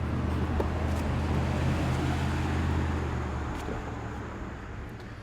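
A car driving on a road, its engine and tyre noise swelling and then fading away after about three and a half seconds.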